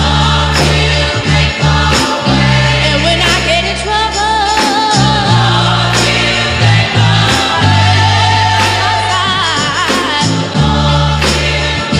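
Background music: sung vocals over a steady beat with deep, sustained bass notes.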